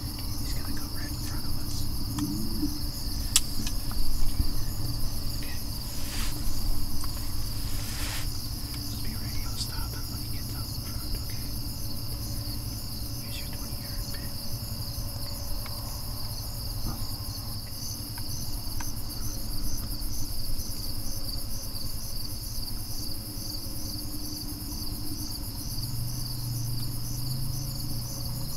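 A steady chorus of insects trilling in fast, even pulses over a low background rumble, with a few soft knocks in the first several seconds.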